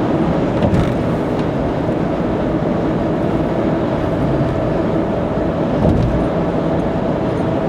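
Car cruising at expressway speed: a steady rumble of tyre and road noise with the engine, heard from inside the cabin, with a light thump about a second in and another about six seconds in.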